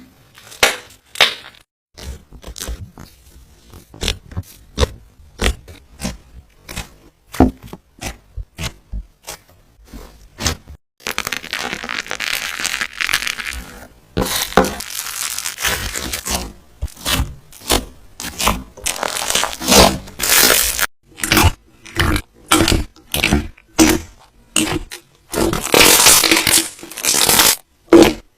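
Slime being squeezed and pressed by hand: a run of short, sharp sticky pops and clicks, several a second, with longer crackling, squishing stretches around the middle and again near the end.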